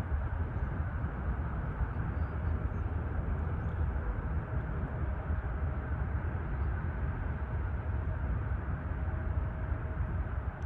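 Distant jet airliner engines running at takeoff power during the takeoff roll: a steady low rumble, with a faint thin whine joining about halfway through.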